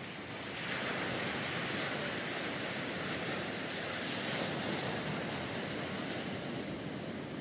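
Rough sea surf breaking and washing, a steady rushing noise that swells about half a second in, with wind blowing.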